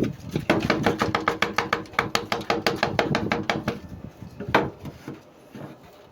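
Rapid, even mechanical clicking, about eight clicks a second for some three seconds over a steady hum, then a single sharp click.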